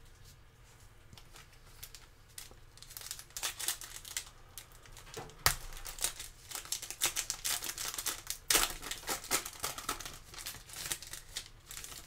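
Foil wrapper of a Select football card pack being torn open and crinkled by hands in plastic gloves, in irregular crackles starting a couple of seconds in, with a sharp snap about halfway.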